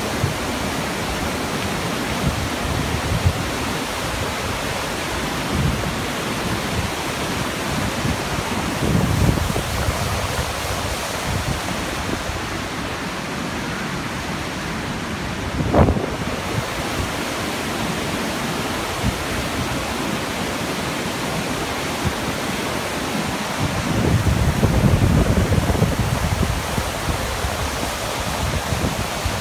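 Whitewater of the creek below Yosemite Falls rushing steadily over boulders. Wind buffets the microphone now and then, most of all for a few seconds near the end, and there is a single short knock about halfway through.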